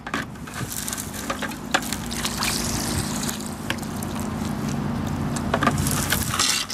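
Homemade PVC hand dredge (gold sucker) drawing muddy water and dirt from a bucket and squirting it into a gold pan: a steady rush and slosh of water and slurry that cuts off shortly before the end.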